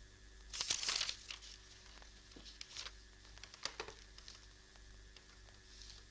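A few short paper rustles, the loudest about a second in and smaller ones around three and four seconds, over a faint steady hum.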